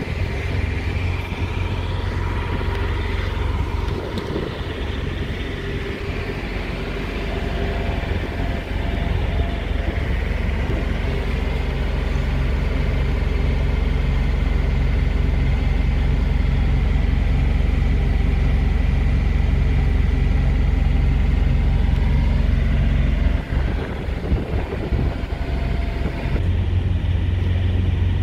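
Heavy diesel truck engine idling with a steady low rumble and hum, dipping briefly near the end.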